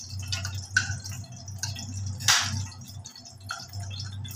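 Slotted spatula scraping and tapping on a ceramic plate as carrot strips and raisins are pushed off it onto rice in an aluminium pot: a few sharp clicks, the loudest about two seconds in, over a low steady hum.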